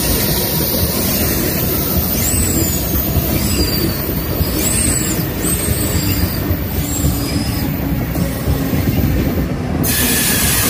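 Amtrak Cascades Talgo trainset passing at speed: a steady rumble and hiss of wheels on rail, with several short high-pitched wheel squeals through the middle. The hiss cuts off sharply near the end.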